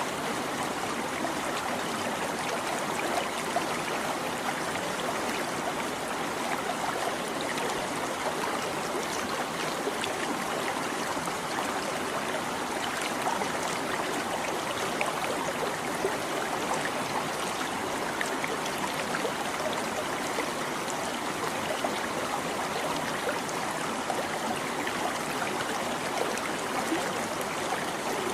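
Small stream babbling and trickling over stones, a steady running-water sound with fine splashy detail.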